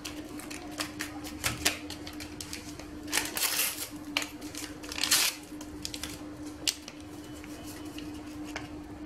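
Small paper sachets of dry yeast being shaken and flicked empty over a steel bowl: a run of light ticks and crinkles, with two longer rustling bursts about three and five seconds in. A faint steady hum underneath.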